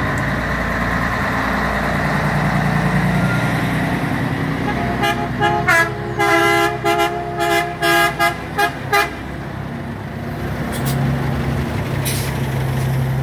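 Diesel truck engines running as heavy trucks drive past. About five seconds in, a truck's air horn sounds a chord of several tones in a quick series of about nine short blasts, one of them held longer, and then a steady engine drone returns near the end.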